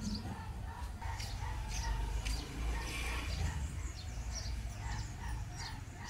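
Outdoor ambience of small birds chirping in short, high calls again and again, over a steady low rumble.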